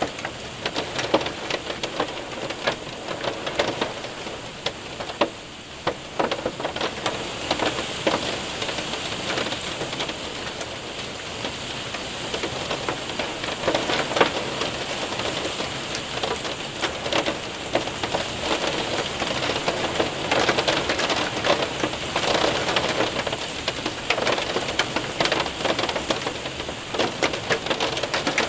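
Hail and rain hitting a window and roof: a steady wash of rain with many sharp ticks and taps of hailstones.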